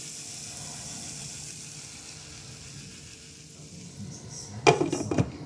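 Chicken patties frying with a faint steady sizzle in a skillet, then a short burst of loud clattering near the end.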